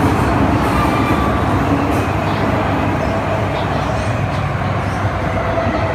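Interior running noise of an MTR Tsuen Wan Line M-Train in a tunnel: a steady rumble of wheels on rail with a faint motor whine, easing slightly in loudness as the train nears a station.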